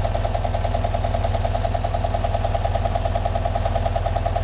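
1978 Volkswagen bus's 2-liter fuel-injected air-cooled flat-four idling steadily with an even, rapid pulse. It is running normally with its usual sound while a homemade hydrogen generator feeds gas into its intake alongside the gasoline.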